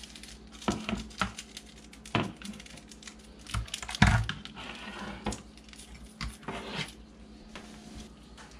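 Kitchen handling sounds: scattered taps and knocks on the counter and bowl, the loudest about four seconds in, with paper rustling as small stevia packets are torn open and handled.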